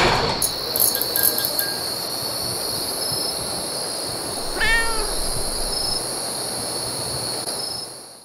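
Outro sound bed: a steady noisy hiss with a constant high whine, broken about four and a half seconds in by one short pitched cry that rises and falls, then fading out at the end.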